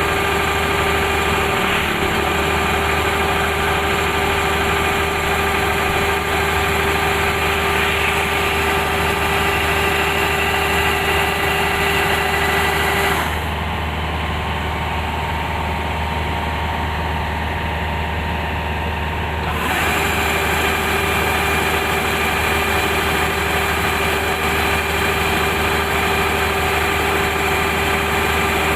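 Kubota rice combine harvester's diesel engine running steadily, with a constant mechanical hum and whine. About halfway through, the sound drops a little and turns duller for several seconds, then comes back to full.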